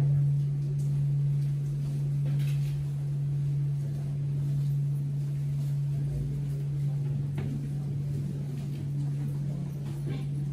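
A steady low hum, one unchanging tone, with a few faint clicks.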